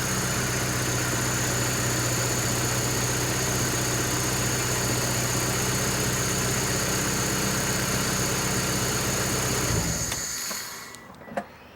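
Air horn's 12-volt electric compressor pump running steadily with a low hum and a thin high whine, sounding tired, then cutting out suddenly about ten seconds in as the horn fuse blows.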